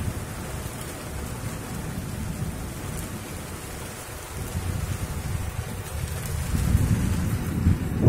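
Heavy rain pouring steadily, with a low rumble of thunder swelling over the last couple of seconds.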